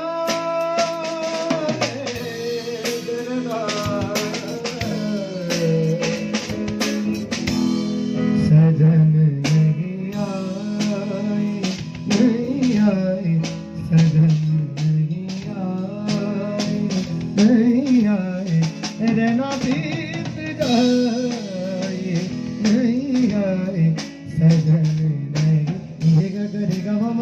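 Live band playing a song at a sound check: a singer over guitar, bass and a drum kit with regular drum hits.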